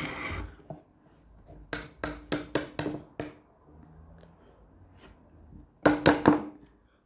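Small hammer tapping: a quick run of about six sharp knocks about two seconds in, then a louder cluster of about three knocks near the end.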